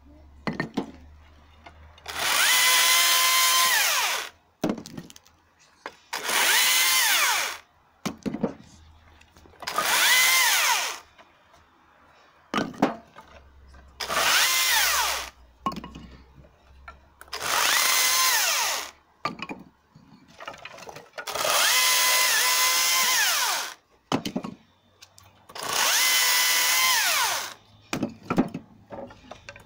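Husqvarna T536Li XP battery chainsaw cutting firewood branches in seven short bursts of about two seconds each. The motor whines up to speed, holds through the cut, and spins down. Short knocks of wood sound between cuts.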